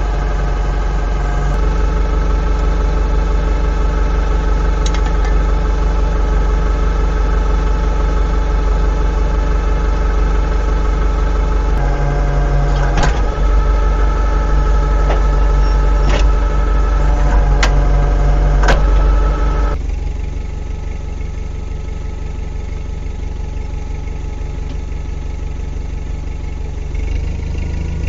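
Kubota M105S tractor's diesel engine idling, its note shifting a couple of times as the hydraulic top link is worked. A few sharp clicks come in the middle, and about twenty seconds in the engine sound turns quieter and duller.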